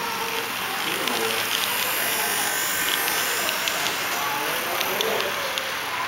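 HO-scale model diesel locomotives and double-stack container cars passing close by: small electric motors whirring and wheels ticking and rattling over the track.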